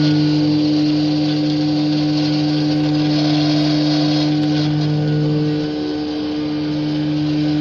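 Mini CNC router spindle milling an aluminium plate with an end mill: a steady motor hum with a continuous hiss of the cutter in the metal. The lower part of the hum drops away briefly about six seconds in, then returns.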